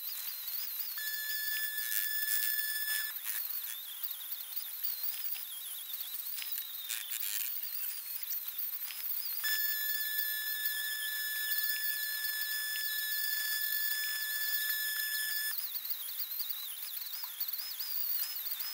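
Angle grinder working rusty steel suspension parts, run in bursts: a steady high whine when it spins free, with a wavering tone while it is pressed into the metal.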